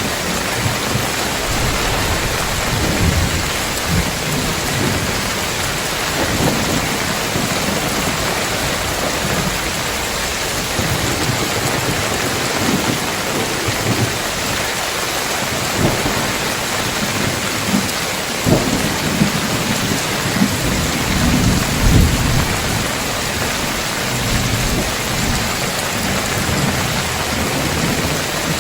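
Heavy rain pouring steadily on a tiled roof, with low thunder rumbling on and off throughout and a few sharper peaks about two-thirds of the way in.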